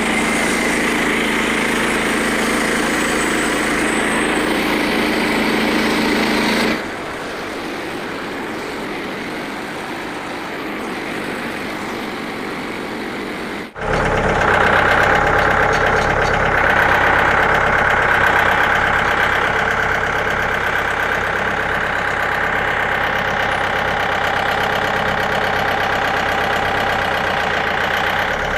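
Small gas engine of a Frontier OS27 portable bandsaw sawmill running steadily. The sound changes abruptly about seven seconds in and again after a brief dip about fourteen seconds in.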